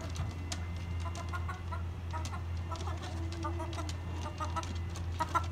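Chickens clucking inside the coop: short clucks in quick clusters, repeated throughout, over a steady low hum.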